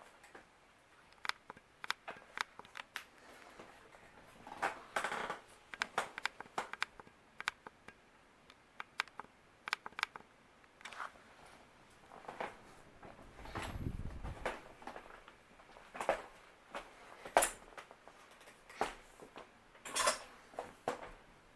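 Hampton Bay Cameron II ceiling fan running on medium speed, heard as scattered light clicks and ticks rather than a steady hum. There is a short low rumble a little past the middle.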